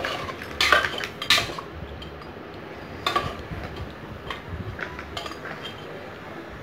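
Ladle stirring a thick mutton curry masala in a pressure cooker, knocking and scraping against the pot's metal sides in irregular strokes, the two loudest in the first second and a half.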